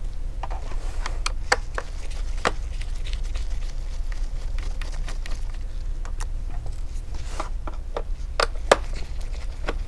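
Scattered light clicks and taps of gloved fingers and a small screwdriver handling a laptop's aluminium bottom case and its rubber foot strip, over a steady low hum.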